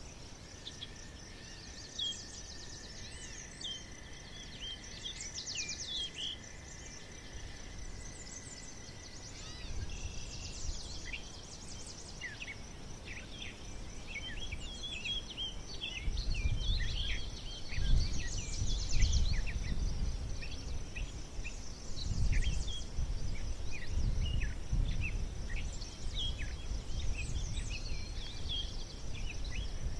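Small woodland birds chirping and calling in quick short notes, with a thin steady whistle for the first few seconds. From about halfway through, a low rumble comes and goes beneath the calls.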